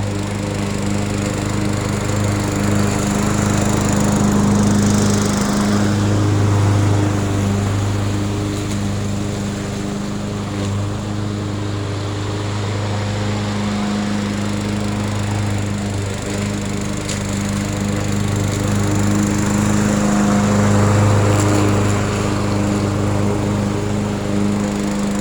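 Murray self-propelled 22-inch 2-in-1 lawn mower's engine running at a steady speed, its loudness swelling and easing a little now and then.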